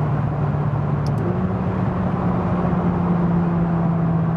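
McLaren 570GT's twin-turbo V8 heard from inside the cabin at Autobahn speed, a steady engine drone over road and wind noise. The note steps up in pitch about a second in, just after a brief click.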